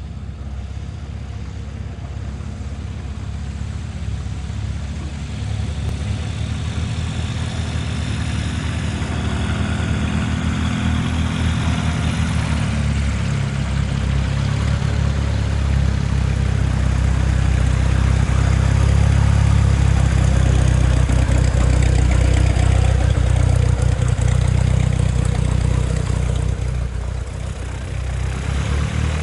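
Cessna 172's piston engine and propeller running steadily, growing louder over the first two-thirds, with a brief dip near the end before picking up again.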